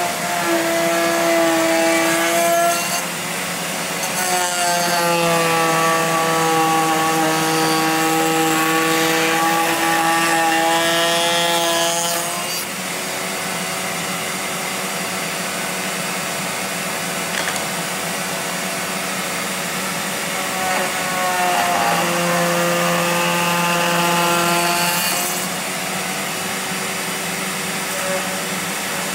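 Bosch POF 1400 ACE router running steadily under a benchtop router table, cutting wood with a bearing-guided bit. It gets louder and adds a humming tone during three passes as a curved wooden piece is fed along the bit: for the first three seconds or so, from about four to twelve seconds in, and from about twenty-one to twenty-five seconds in.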